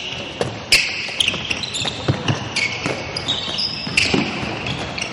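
Handball practice on an indoor court: the ball bouncing and slapping into hands, with repeated short squeaks of sneakers on the floor.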